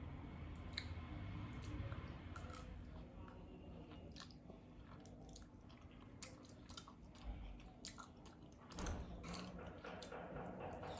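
A person chewing and eating stir-fried instant noodles close to the microphone, with scattered small mouth smacks and clicks.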